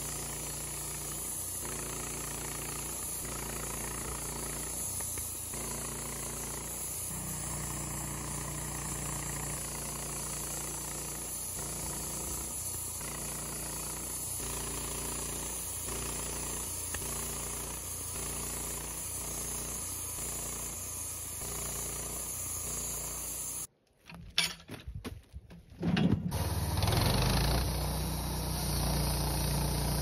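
Wood-Mizer LT15 portable bandsaw mill running steadily, its engine-driven band blade cutting through a Douglas fir log. The sound drops out abruptly about three-quarters of the way through, then returns louder a couple of seconds later.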